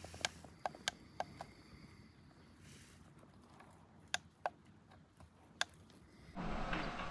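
Buttons on an electric heating mat's hand controller being pressed by a toddler: a series of short sharp clicks, several in the first second and a half and a few more later. Near the end a louder steady outdoor background comes in.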